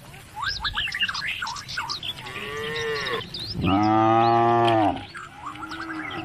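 Cattle mooing: a shorter call about two and a half seconds in, then one long, loud moo about four seconds in, and a brief call near the end. Small birds chirp during the first two seconds.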